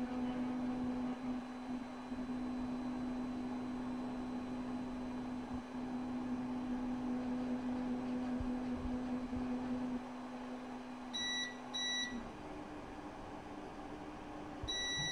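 EPAX X1 resin LCD printer's Z-axis motor running with a steady whine as it lowers the build platform at the start of a dry print. The printer beeps twice, short and high, about eleven seconds in, and the whine stops soon after. Another beep starts just before the end.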